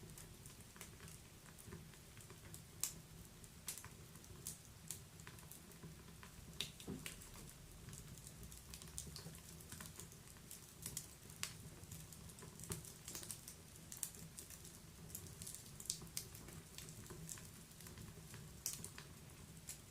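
Wood fire crackling in a fireplace: irregular sharp pops and snaps, several a second at times, over a faint low rumble.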